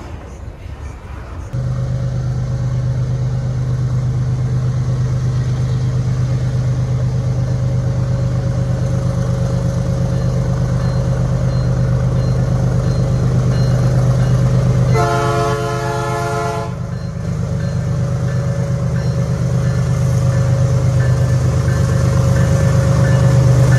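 Diesel freight locomotive approaching with its engine running steadily. It sounds one horn blast of nearly two seconds about two-thirds of the way through.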